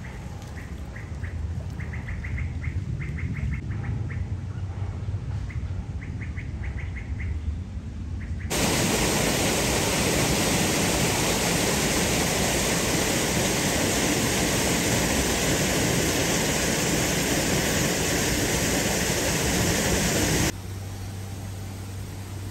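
Birds chirping in short, rapid high trills, several times over a low rumble. About eight seconds in, the sound switches abruptly to a loud, steady rushing noise that lasts about twelve seconds and cuts off just as suddenly, leaving a quieter low hum.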